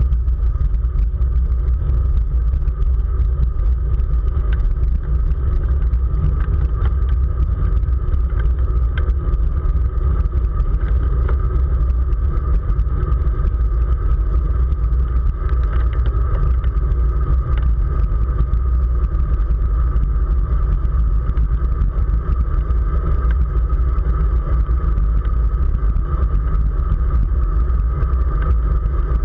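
Steady wind rumble on the microphone of a camera riding on a road bicycle at race speed, mixed with road and tyre noise, and a faint steady tone above it.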